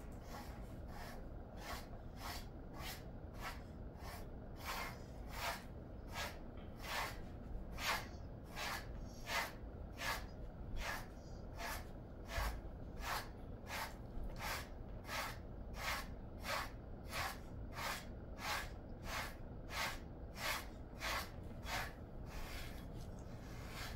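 Wire-bristle grooming brush stroking through a Jindo-mix dog's thick coat, one brushing stroke after another at a steady pace a little under two a second.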